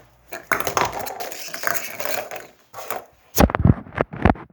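Small plastic objects being handled and clattering, with rustling, then a few loud knocks near the end.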